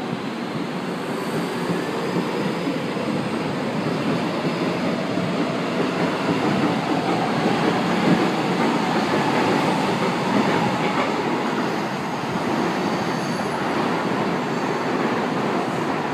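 São Paulo Metro train running along the track, a steady noise of steel wheels rolling on the rails. A faint whine comes in partway through.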